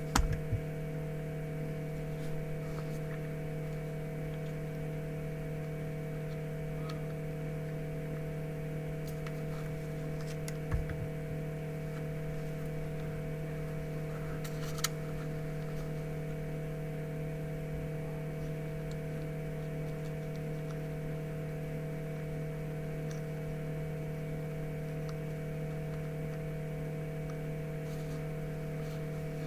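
Steady electrical hum made of several held tones, with a few faint clicks: a cluster just after the start, then single ones about eleven and fifteen seconds in.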